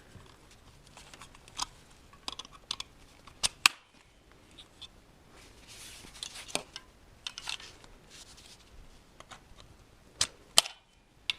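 Sharp plastic clicks and knocks, several spread irregularly, as the legs of a baby activity gym are handled and snapped into its central twist-and-fold hub, with faint handling rustle between.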